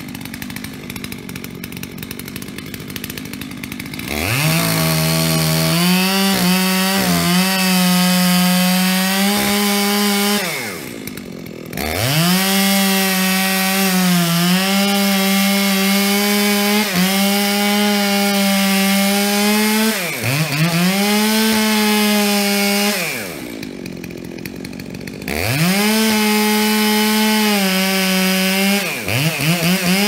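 Dolmar 7900 two-stroke chainsaw idling, then revved to full throttle and cutting into a spruce trunk in several spells. The engine note sags under load and falls back to idle between spells, twice for a couple of seconds and twice only briefly.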